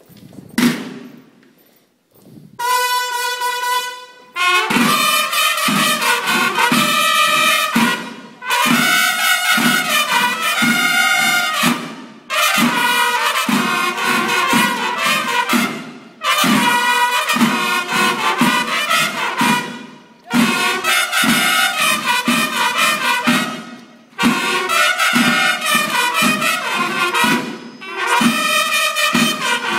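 Bugles and drums of a school banda de guerra playing a march as the flag is paraded. The bugle phrases start afresh about every four seconds over a steady drum beat, after a single held bugle note about two seconds in.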